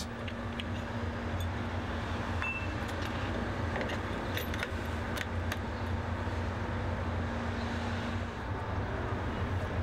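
Steady low engine rumble, with a few metallic clinks and clicks as a fuel-delivery hose's cam-lever coupling is fitted onto a tanker's outlet. A low hum in the rumble stops near the end.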